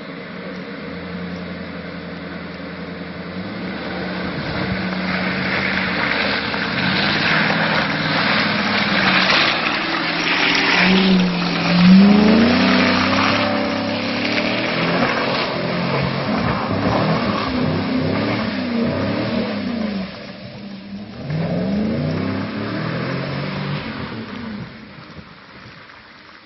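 Radio-controlled off-road truck driving, its motor pitch rising and falling over and over as the throttle is worked, over a rough rattling noise from the drivetrain and terrain. It builds up, cuts out briefly about three-quarters of the way through, and fades near the end.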